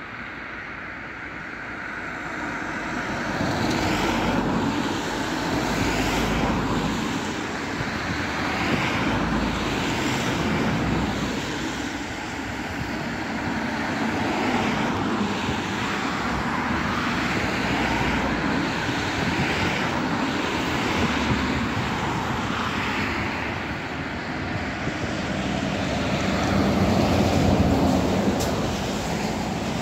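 Class 66 diesel-electric freight locomotive, with its two-stroke V12 engine, approaching under power. A steady rumbling drone grows louder near the end as the locomotive draws close.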